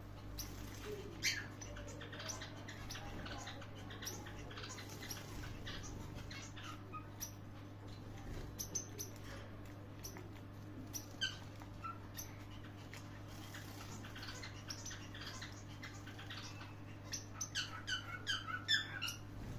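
Star finches chirping: short, high calls scattered irregularly, coming thicker and faster near the end, over a steady low electrical hum.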